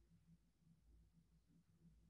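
Near silence: faint low hum of room tone.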